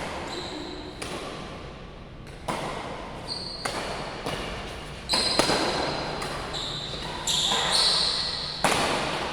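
Badminton rally in a reverberant sports hall: sharp racket strikes on the shuttlecock roughly once a second, with shoes squeaking on the court floor between hits.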